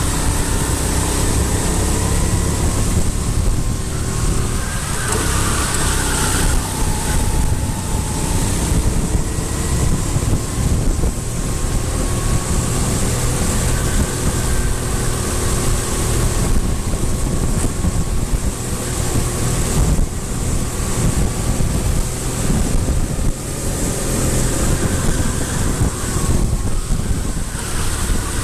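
Wind buffeting the microphone with a steady low rumble, and vehicle engines droning in the distance, their pitch wavering slowly up and down.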